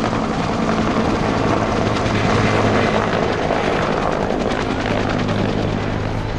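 Helicopter flying overhead, its rotor blades beating in a fast, steady chop over a steady low engine tone.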